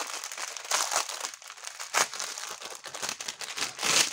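Thin plastic packets of diamond-painting rhinestones crinkling as they are handled, with louder crinkles about one, two and four seconds in.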